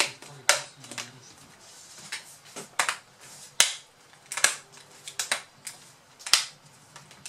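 Plastic screen bezel of a Lenovo U310 laptop snapping onto the display lid as it is pressed along its edges: about a dozen sharp cracks, irregularly spaced. The cracks are the bezel's clips seating into place, not the plastic breaking.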